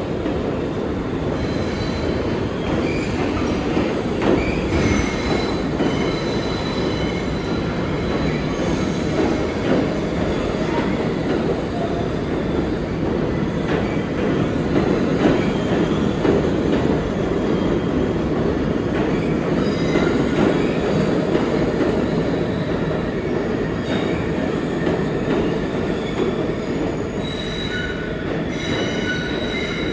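New York City subway train running through the station, with a steady rumble of steel wheels on rail and high-pitched wheel squeal that grows stronger near the end.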